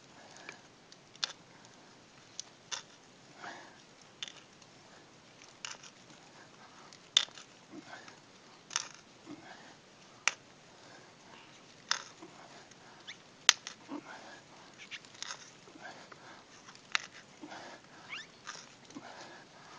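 Sharp, irregular clicks and creaks, about one every second, from a wooden-handled hand tool being twisted into a birch trunk to bore a tap hole for sap. The sharpest click comes a little past halfway.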